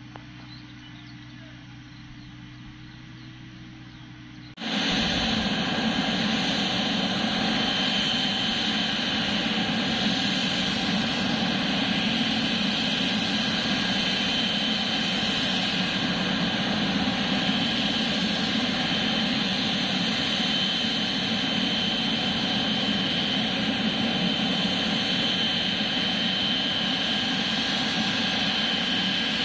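Boeing 777-300ER's GE90 turbofan engines running loud and steady, with a steady high whine over the broad noise. The sound cuts in abruptly about four and a half seconds in, after a quiet stretch with faint birds.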